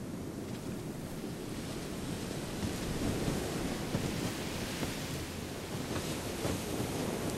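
Ocean surf breaking on a beach, a steady wash that swells a little partway through, with wind buffeting the microphone.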